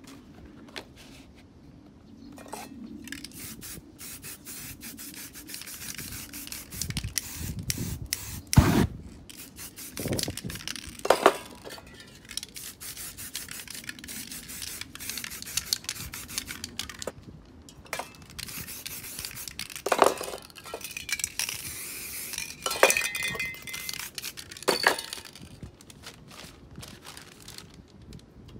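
Aerosol spray paint cans hissing in bursts onto a canvas, with paper stencils and newspaper rubbing and scraping against the surface. A few short knocks from handling stand out above the hiss.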